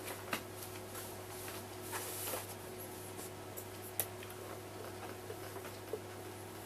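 Cloth duster rubbing across a whiteboard as it is wiped clean, with scattered light clicks and taps and a sharper click about four seconds in, then a marker writing on the board near the end. A low steady electrical hum runs underneath.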